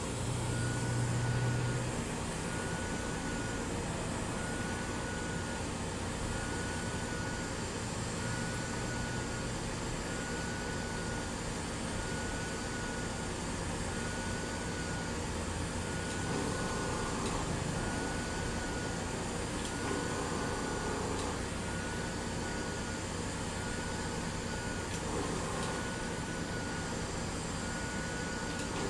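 Steady rushing of a hot air rework station's nozzle blowing hot air, mixed with the fan of a fume extractor. A short, faint high beep repeats about once a second throughout.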